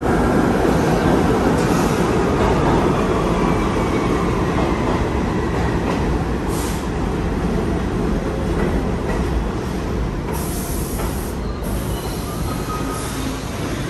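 New York City subway train with stainless-steel cars pulling in alongside the platform: a steady, loud rumble of wheels on rail, echoing in the underground station, easing off slightly as it slows, with a faint wheel squeal.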